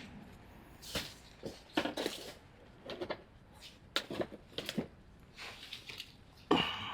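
Scattered knocks, clatter and rustling of objects being handled, irregular and fairly quiet.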